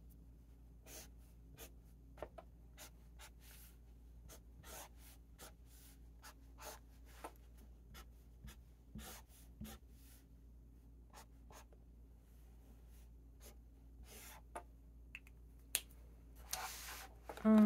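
Highlighter pen swiped across planner paper: a series of short, irregular scratchy strokes, with a louder rustle of paper near the end.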